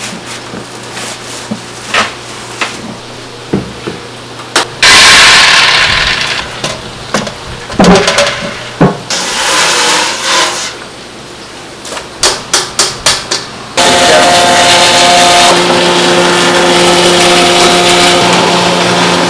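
Buckets and a plastic liner are handled with scattered knocks. A hose sprayer hisses water into a stainless-steel bucket. After a run of quick clicks and clangs, a motor-driven tofu-workshop machine starts about two-thirds of the way in and runs with a steady, loud hum.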